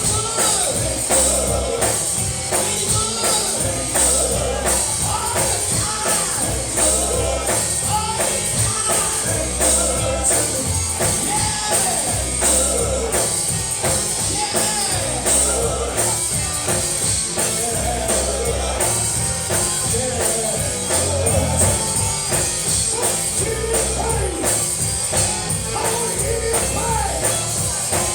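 Live gospel band music: voices singing over a band with drums and a tambourine keeping a steady beat.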